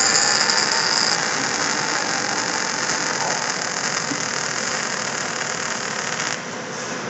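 Robotic welding equipment running: a steady hiss spread over a wide range, with a bright high-pitched edge that fades about a second in. The noise drops a little near the end.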